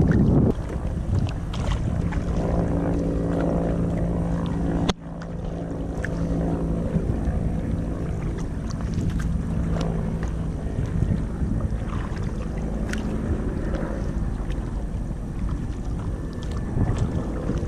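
Kayak being paddled through water, with wind buffeting the microphone and scattered small splashes and knocks. A steady low hum runs for several seconds in the first half, and the sound briefly drops out about five seconds in.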